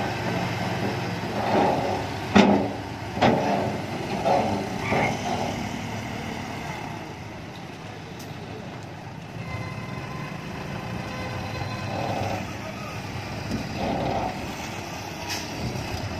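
UD Nissan Diesel dump truck running with its tipper bed raised while a load of soil slides out of the back. Two sharp knocks stand out a few seconds in.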